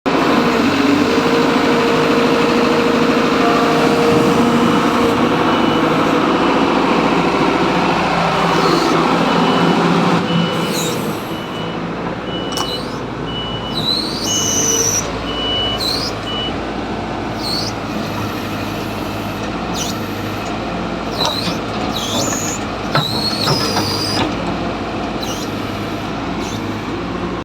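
Kobelco SK210LC hydraulic excavator running. For about the first ten seconds it is loud and busy, with a steady whine over the engine, then it settles to a quieter, steady run. Through the middle comes a row of short, evenly spaced beeps, and short high chirps come and go in the second half.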